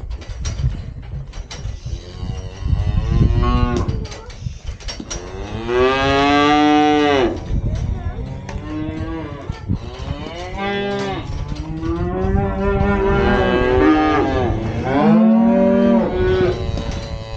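Beef cattle mooing: a string of long, drawn-out calls from several animals, one after another, the longest and loudest about six seconds in, over a steady low rumble.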